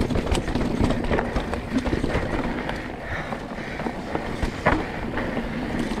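Mountain bike riding fast down a rocky dirt trail: a steady low rumble of tyres over dirt and stone, broken by many sharp clacks and rattles as the bike hits rocks.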